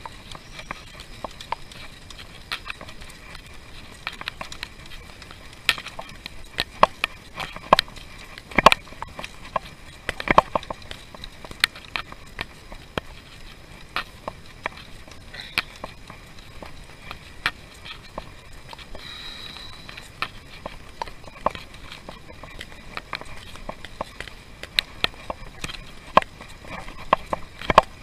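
Bicycle rolling on a road: frequent, irregular sharp clicks and rattles over a faint, steady high whine.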